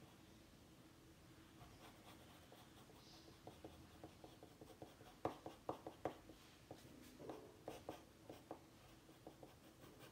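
Faint scratching of sketching on paper, many short strokes that come thickest and loudest in the middle, over a faint steady hum.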